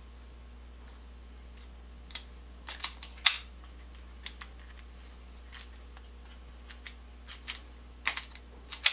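Irregular sharp clicks and light taps of small tools and metal parts being handled during electrical wiring work, in a cluster about two to three and a half seconds in and again near the end.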